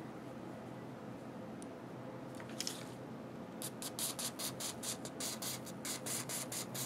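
Ballistol aerosol can sprayed through its thin extension straw onto a rifle bolt: one short hiss about two and a half seconds in, then a quick run of short spurts, about four a second, until the end.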